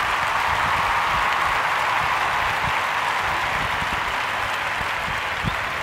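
Applause from an audience, steady and easing off slightly toward the end.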